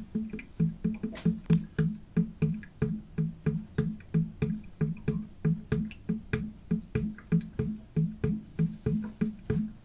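Music: a plucked guitar line of low notes repeating in a steady, quick rhythm, about three to four notes a second.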